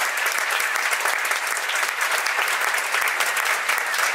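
A theatre audience applauding, dense and steady clapping from many people.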